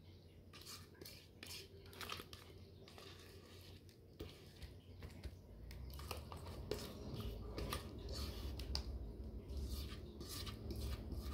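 Utensil scraping and tapping cake batter out of a mixing bowl into baking pans: a run of faint scrapes and clicks. A low hum comes in about halfway through.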